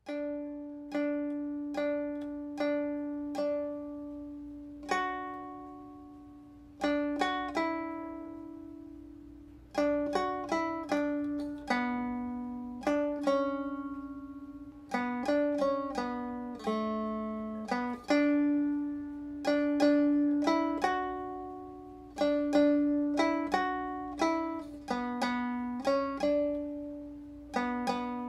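Instrumental soundtrack music: a plucked string instrument picks out a melody of notes that each ring and fade, over a held low tone.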